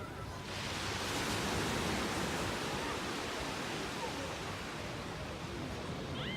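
Sea surf washing onto a beach, a steady rush of water that swells about half a second in.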